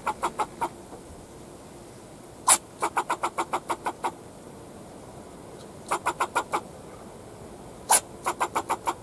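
Fox squirrel barking in bouts: each bout is one loud bark followed by a quick run of short chucks, about six a second, repeated three or four times. It is an alarm bark, scolding the person it is watching.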